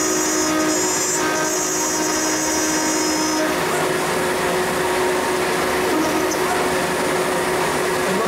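CNC router spindle running steadily while its end mill cuts a pocket into wet aluminium sheet. A high whine sounds over the steady spindle tone and stops about three and a half seconds in.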